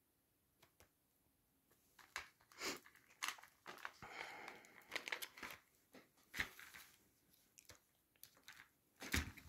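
Clear plastic coin-album sheets being handled and turned in a ring binder, crinkling and rustling, with light clicks. It starts about two seconds in, and a sharper click comes near the end.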